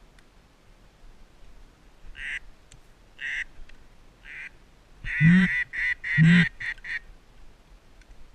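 Duck quacks: three single quacks about a second apart, then a louder run of several quacks between about five and seven seconds in.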